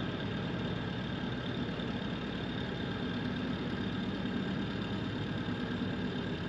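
A catamaran's twin marine engines running steadily while being worked on the gear and throttle levers to manoeuvre the boat off a fouled anchor.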